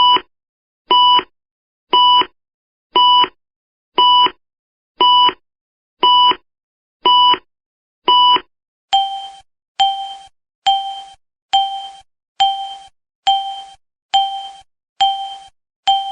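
Electronic warning beeps. First a steady, evenly held beep about once a second, nine times; then, about nine seconds in, a lower-pitched beep that fades after each strike takes over, repeating a little faster.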